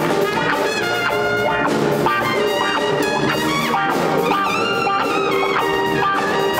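Live jazz-funk band playing, with a trumpet carrying a quick-moving melodic line over the rhythm section of drum kit, electric guitars and piano.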